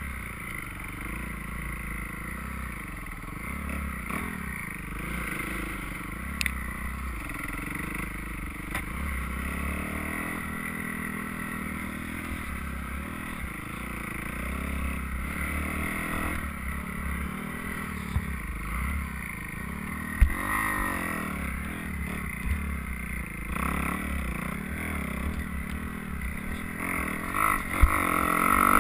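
Dirt bike engine running on a hillside trail ride, its pitch rising and falling with the throttle, with a few knocks from the bike over rough ground. It gets louder near the end.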